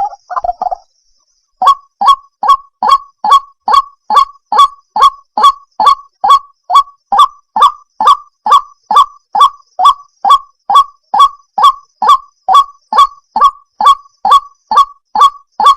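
White-breasted waterhen (ruak-ruak) calling: a steady, even series of short repeated notes, a little over two a second, starting about a second and a half in.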